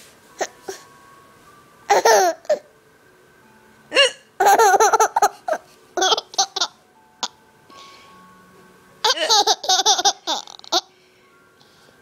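A mother and daughter hiccuping and laughing together: short sharp hiccups between fits of laughter, the longest laughing fits about four seconds in and again near the end.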